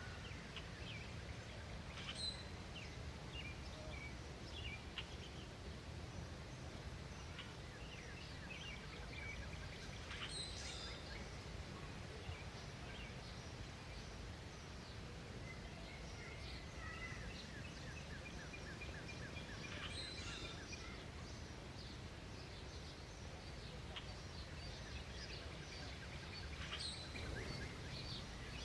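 Wild birds chirping and calling: scattered short, sharp calls and a rapid trill of repeated notes in the middle, over a steady low background rumble.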